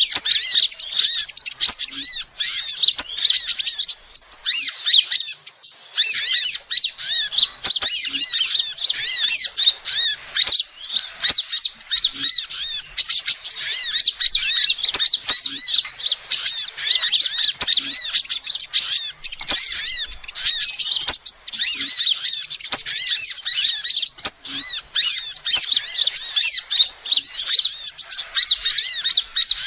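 Female sunbird giving a fast, unbroken stream of high, thin chirping calls. This is the kind of recording played as a lure to call in small birds.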